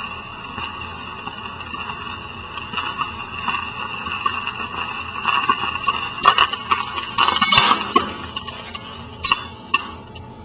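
Sodium metal reacting on water in a glass beaker: a steady fizz and hiss that builds into dense crackling and clicking, then two sharp pops near the end.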